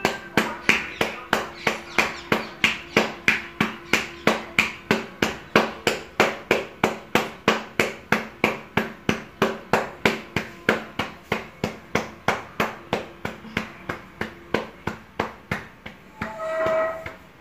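Wet pearl-millet (bajra) flour dough being patted thin between the palms to shape a rotlo, an even run of soft slaps about three a second.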